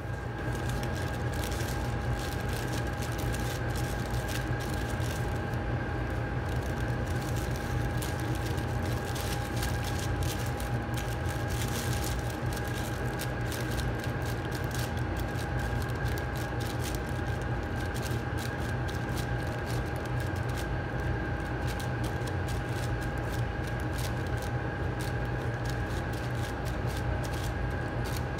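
Steady low machine hum with a constant whine, under light crinkling and rustling of a plastic sheet as gloved hands press a raw minced chicken patty flat inside it.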